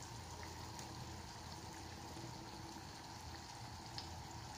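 Faint steady hiss of a lamb tajine cooking in a clay tajine on a gas burner, with a single light tick about four seconds in.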